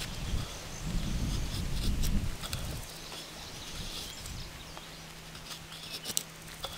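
A Scandi-ground AA Forge puukko shaving curls off a dry stick into a feather stick: short scraping strokes of the blade along the wood, with scattered small clicks. A low rumble fills the first three seconds.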